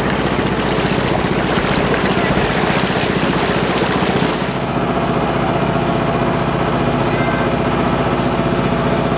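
Motor launch's engine running steadily under way, with a loud rush of wind and water over it that drops away about halfway through, leaving the engine hum.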